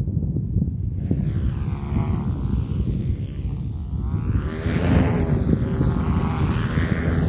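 Wind buffeting the microphone with a steady low rumble. Behind it a propeller-driven light aircraft drones overhead, its tone shifting and sweeping as it passes.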